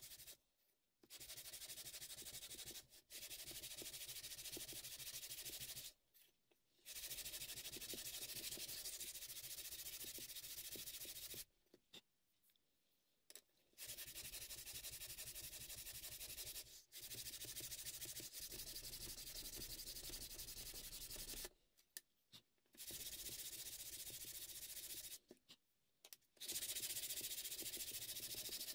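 Hand sanding of a sapele wood razor scale with a sanding block: a steady scratchy hiss of sandpaper strokes on wood, stopping for a few short pauses.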